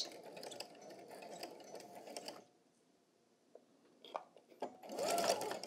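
Electric sewing machine running a short stretch of stitches to backstitch the end of a seam, stopping about two and a half seconds in. A few light clicks and a brief handling noise follow near the end.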